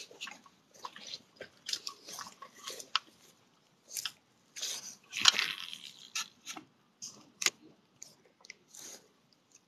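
Irregular close crunching and rustling as the angler moves along a grassy lake bank with phone and rod in hand, loudest about five seconds in and dying away near the end.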